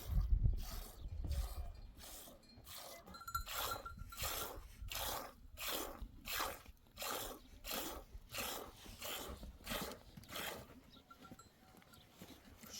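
Hand milking of a sheep: jets of milk squirting into a pail in an even rhythm of about two hissing strokes a second.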